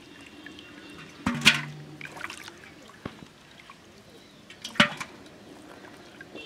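Pond water splashing and dripping as a large fish is handled in a hand-held net, with two sharp splashes, about one and a half seconds and five seconds in.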